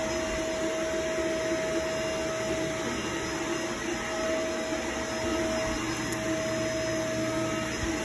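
Vacuum cleaner running steadily over carpet, a constant motor whine over a steady rush of air.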